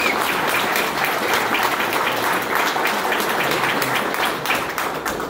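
Audience applauding, a dense run of many hands clapping that dies down near the end.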